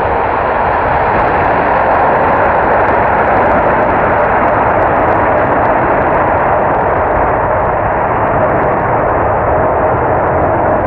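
Boeing 787-9 Dreamliner's two Rolls-Royce Trent 1000 turbofans at takeoff thrust, heard from behind as the jet rolls away down the runway: a loud, steady jet noise with faint crackles, its highest part slowly fading as the aircraft draws away.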